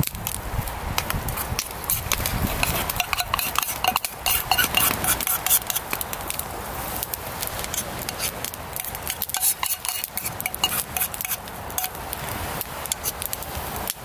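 Chopped cabbage and okonomiyaki batter sizzling in a cast iron skillet over a wood fire, with a utensil stirring and scraping in the pan and the fire crackling beneath.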